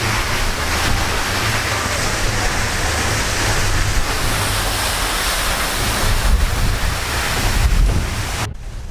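Waterfall rushing with a steady, loud roar of falling water, with wind buffeting the microphone in an uneven low rumble. It cuts off suddenly near the end.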